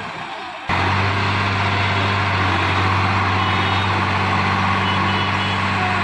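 Swaraj tractor's diesel engine running steadily at a low, even speed. A quieter stretch at the start gives way abruptly, under a second in, to a loud, close engine hum.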